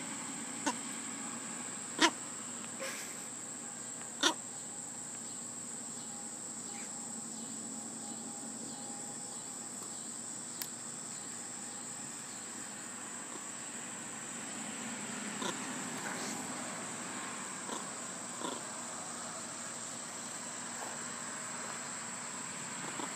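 Crickets trilling steadily at a high pitch, with two brief sharp clicks about two and four seconds in.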